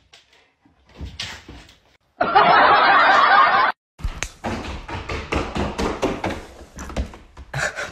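A young goat's small hooves clattering and tapping on a hardwood floor as it runs, an irregular patter of sharp clicks starting about halfway through. Before it comes a loud rough burst of noise lasting about a second and a half.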